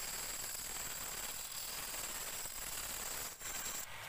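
A turning tool cutting the face of a large wooden platter spinning on a wood lathe: a steady hiss of shavings with a thin high whine, breaking off briefly twice near the end.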